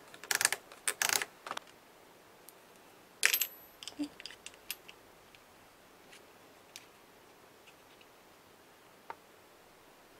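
Brother KH801 knitting machine carriage, freshly cleaned and lubricated, pushed across the needle bed with a rattling mechanical run for about a second and a half. A sharp clack follows about three seconds in, then a few small clicks.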